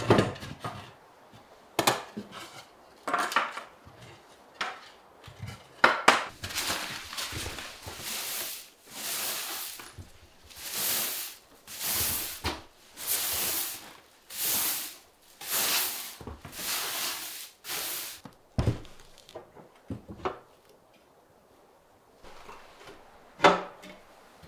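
Hand-tool work on a hard surface. A few knocks, then about ten rasping scraping strokes roughly a second apart, then several more thuds and knocks.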